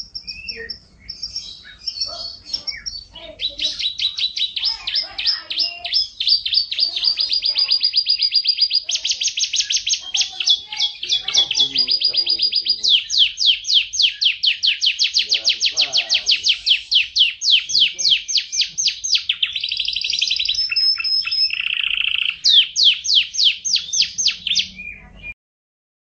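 Domestic canary singing a long, continuous song of rapid trills, each a fast run of repeated high notes, with a short lower buzzy note near the end. The song cuts off abruptly just before the end.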